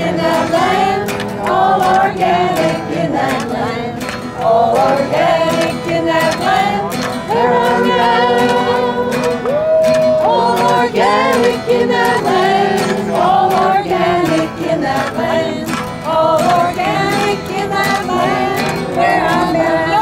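A group of voices singing a song together, with music under them.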